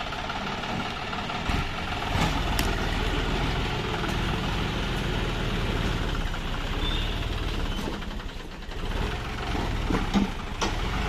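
John Deere 5045D tractor's three-cylinder diesel engine running under load as its rear blade drags and levels loose soil. The engine sound dips briefly about eight seconds in, then picks up again, with a few sharp knocks near the end.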